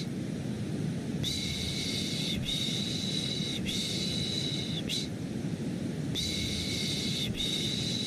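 Repeated 'shh' shushing, each shush about a second long, over a steady low white-noise bed; the shushes start about a second in, pause briefly around five seconds in, then resume.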